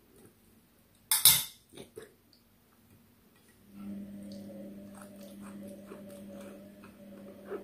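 A spoon clinks sharply against the dishes in a quick double strike about a second in, followed by faint clicks and smacks of eating by hand. About four seconds in, a steady low hum starts and keeps on.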